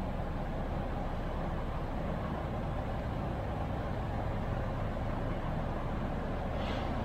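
Diesel engine of a Kromhout-Werkspoor-Verheul VB10 city bus running steadily at low speed as the bus creeps forward, with a short hiss near the end.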